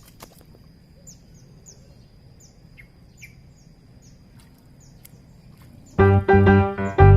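A bird repeating short, high, falling chirps over faint outdoor background with a steady high tone. About six seconds in, loud keyboard music with a piano-like sound cuts in.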